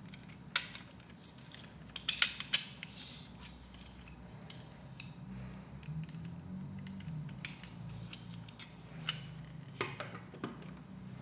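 Plastic Lego Technic pieces clicking and clattering as they are handled and pressed together, in scattered sharp clicks with a loud cluster about two seconds in.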